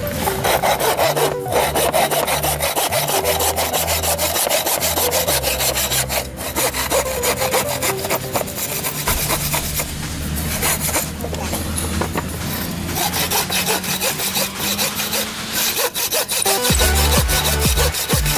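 Frame bow saw cutting back and forth through a wooden hammer handle at a cross peen hammer head, stroke after stroke, over background music whose beat grows louder near the end.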